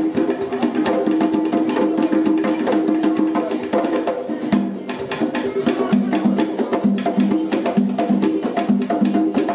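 A group of tall carved hand drums played together in a fast, dense rhythm of sharp strokes, with a held pitched sound running underneath.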